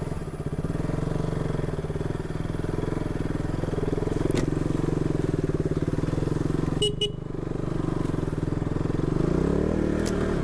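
Single-cylinder motorcycle engine running at low speed on a rough offroad track, its note rising and falling with the throttle. Two short high beeps come about seven seconds in.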